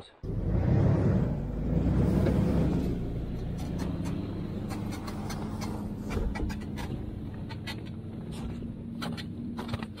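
SUV engine pulling a loaded off-road camper trailer away over packed snow. It is loudest in the first few seconds and fades as the rig drives off, leaving a steady engine hum. Scattered clicks and crackles come in from about four seconds in.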